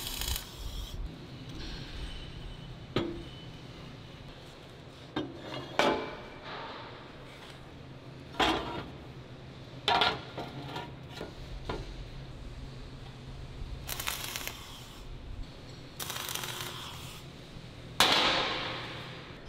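Metalworking on a steel pallet-truck body: a short crackle of welding at the start, then scattered clanks and knocks as sheet-steel panels are handled and fitted. Near the end comes one hard hammer blow on the steel housing, which rings as it dies away.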